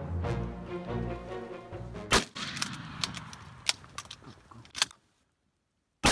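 Background music with a low drum beat, broken at about two seconds by a loud sharp crack with a ringing tail and a few fainter clicks. After a second of dead silence, a shotgun shot goes off at the very end.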